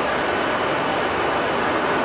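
Jet airliner engines running: a steady, even noise with a faint high whine.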